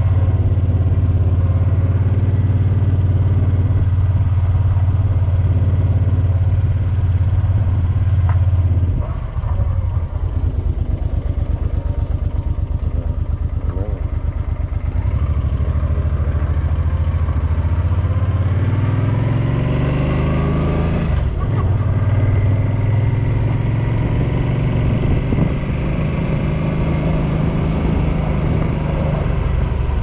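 Suzuki Boulevard M50 motorcycle's 805 cc V-twin engine running as the bike is ridden off. It holds a steady low note at first. About nine seconds in it drops to a lower, pulsing chug. Around eighteen seconds in it rises in pitch as the bike speeds up, breaks off briefly just after, then runs on steadily.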